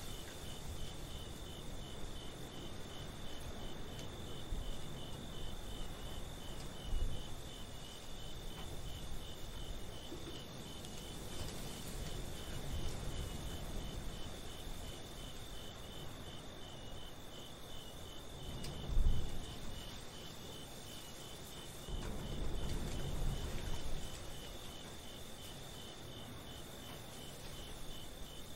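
Crickets chirping in a steady, evenly pulsing high trill, with a few low rumbles swelling up underneath, the loudest about two-thirds of the way through.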